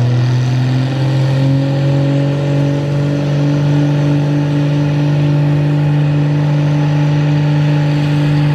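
Vintage farm tractor's engine running hard under load as it pulls a weight-transfer sled, its pitch rising a little about a second in and then holding steady.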